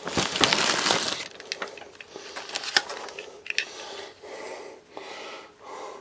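Packaging being handled: a loud crinkling rustle for about the first second, then softer rustling with scattered sharp clicks and taps.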